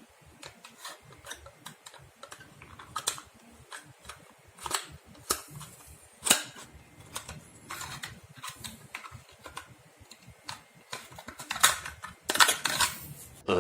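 Irregular light clicks and knocks, some louder than others, with a denser, louder cluster near the end.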